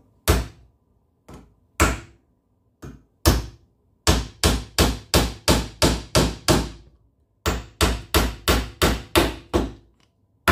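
Claw hammer driving small nails through a thin panel into a wooden jig: a few spaced light taps to start the nails, then two quick runs of blows, about four a second, with a short pause between.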